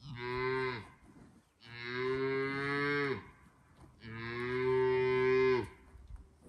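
A cow mooing three times in a row, each call a long low moo that drops in pitch as it ends.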